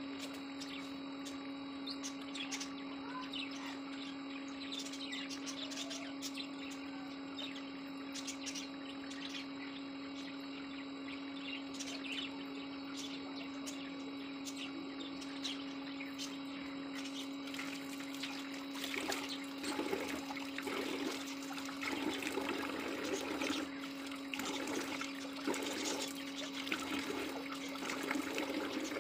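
Water running from an outdoor tap and splashing in uneven bursts as a face pack is washed off with the hands, louder over the last ten seconds. A steady hum runs underneath.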